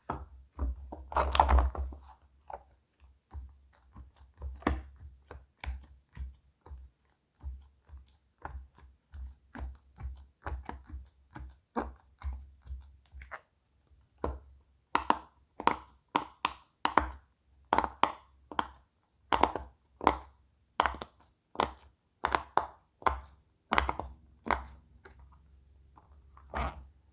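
Silicone pop-it fidget toy bubbles being pressed down one at a time, each giving a short soft pop, irregular at first and then about one or two a second.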